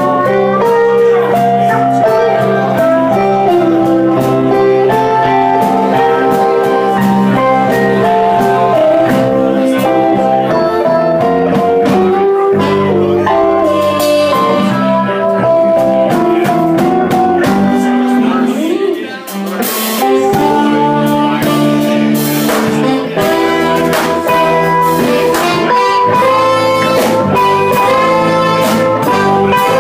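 Live band playing blues: electric guitars and saxophone over electric keyboard and drums. The low end drops out for a moment about two-thirds of the way through, then the full band comes back in.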